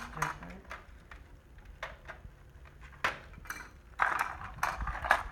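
A pencil scratching on a paper card pressed against a wall, writing a signature in short strokes. The scratching becomes denser and louder about four seconds in.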